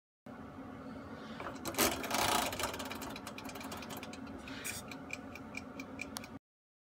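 Oven's mechanical wind-up timer knob being turned to 45 minutes: a rasping run of clicks about two seconds in as it winds, then the timer ticking steadily at about five ticks a second over a low steady hum.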